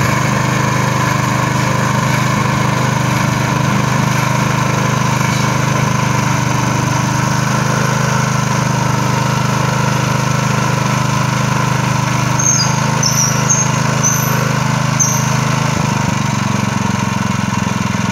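Small Honda petrol engine of a rail drilling machine running steadily, driving the drill as it bores through the steel rail. A few brief high squeaks come about two-thirds of the way in.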